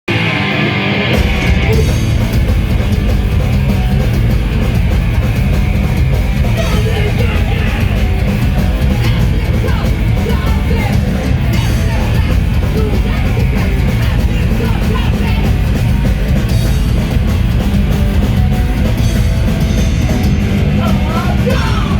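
Loud heavy rock music from a band, a dense unbroken wall of sound with the low end coming in fully about a second in.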